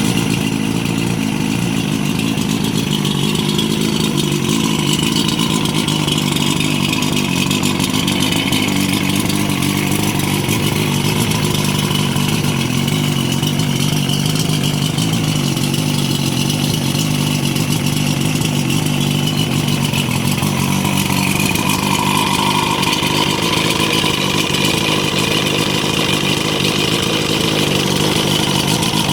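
OMC Sea Drive 140 hp outboard engine running steadily at a constant speed.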